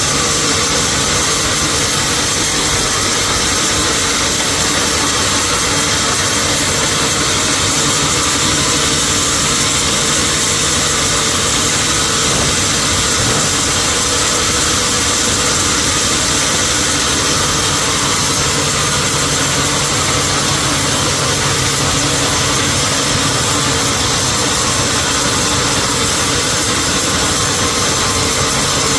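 Sawmill machinery running steadily: an even, loud mechanical noise with a steady hum and a strong hiss, unchanging in pitch and level throughout.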